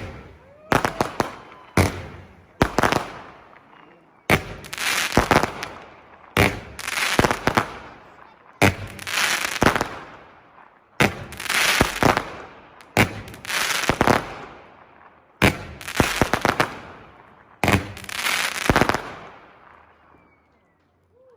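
Fireworks going off: a sharp crack, then groups of bangs about every two seconds, each with a crackling tail that fades. They stop a couple of seconds before the end.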